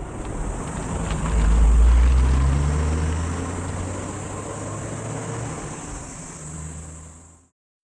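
Nissan R31 Skyline's RB20DET turbocharged inline-six running as the car drives, with road noise. It is loudest about two seconds in, then grows fainter until it cuts off near the end.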